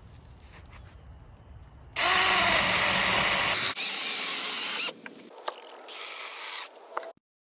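Saker 4-inch cordless mini chainsaw running in two bursts: it starts loudly about two seconds in and runs for nearly three seconds, then runs again briefly near six seconds, its chain cutting through wood.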